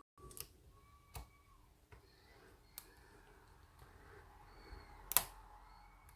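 Lock pick and tension wrench working in a Euro cylinder lock's keyway: a few scattered small metallic clicks, the loudest about five seconds in.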